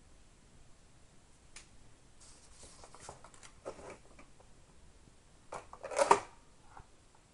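Handling noise from a Garmin eTrex Legend handheld GPS unit turned in the hand: scattered small clicks and rustles, with a louder cluster of scraping and rubbing about six seconds in.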